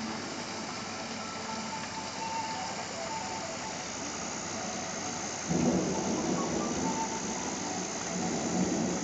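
Steady hiss of heavy spring rain falling. About five and a half seconds in, a louder low rumble starts suddenly and continues.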